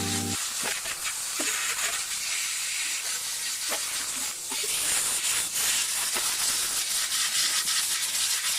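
A steady hiss with scattered light clicks and taps; background music cuts off in the first half second.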